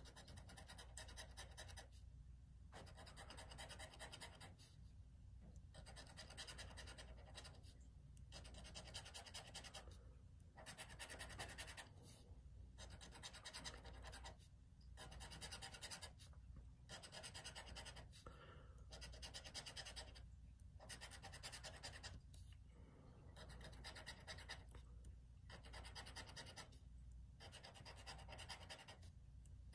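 Scratch-off lottery ticket being scratched with a pen-like scratcher tool: faint scraping in repeated stretches of about two seconds, with brief pauses between, as the play spots are uncovered one after another.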